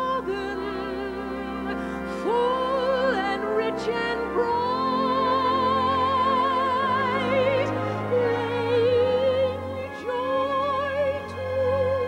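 Orchestral song: a soprano voice sings long held notes with wide vibrato, sliding up into several of them, over sustained string accompaniment.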